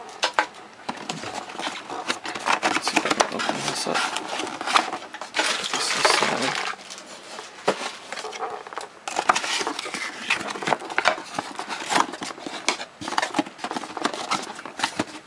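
Cardboard packaging box being handled and opened: a tucked tab pulled free and flaps lifted, with scraping, tapping and rustling of cardboard throughout.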